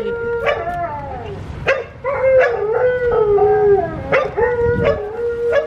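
A pet dog howling and yelping from behind the closed front door: long howls that slide up and down in pitch, broken by a few short yelps, ending on a long steady howl. It is the dog's distress at being left alone as its owners go out.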